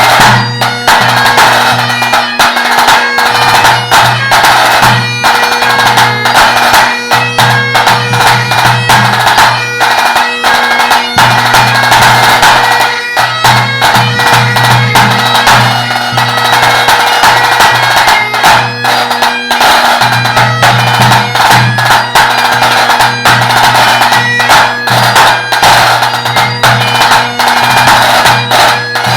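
Great Highland bagpipe playing a tune over its steady drones, with tenor drum strokes struck along with it.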